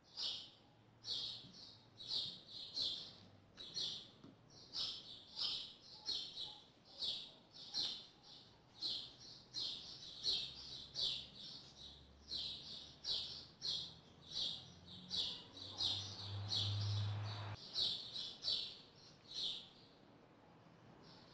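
A bird chirping over and over, short bright chirps about two a second. A brief rustling noise about three-quarters of the way through.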